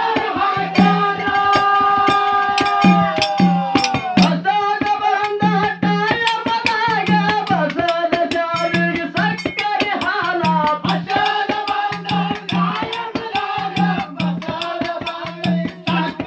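Kannada dollu pada folk song: singing over a fast, steady beat of drum strokes and clattering hand percussion.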